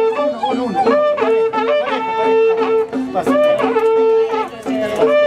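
Andean folk dance music led by wind instruments: long held notes under a quick, bending melody, in short phrases that repeat about once a second.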